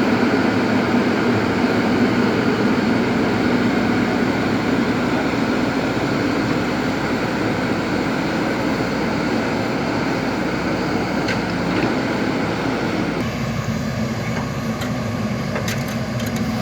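JCB backhoe loader's diesel engine running steadily while working. The sound changes abruptly about thirteen seconds in, and there is light clatter near the end.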